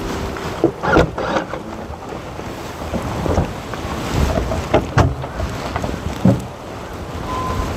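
Wind buffeting the microphone, a dense low rumble with rustling, broken by a few irregular sharp knocks.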